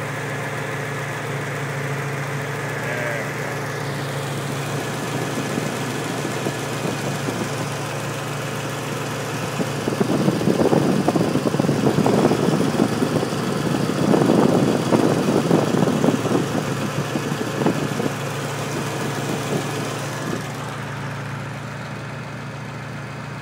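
Subaru STI's turbocharged flat-four idling steadily while air is bled from its cooling system, warming toward the thermostat opening. About ten seconds in, a louder, rough, irregular noise joins the idle for several seconds, then fades.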